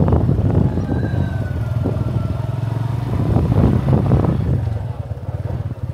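Small motorcycle engine running at low speed with a steady low pulse, easing off and getting quieter near the end.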